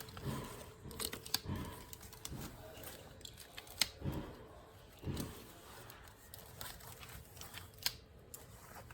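Faint, irregular clicks and taps from a 3D-printed plastic claw hand opening and closing as it grabs at soft fabric, with a few soft thuds in between.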